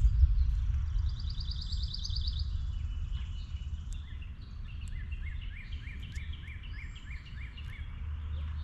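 Songbirds singing: a fast high trill about a second in, then a run of short repeated downward notes, about three a second. Under them runs a low rumble that is loudest at the start.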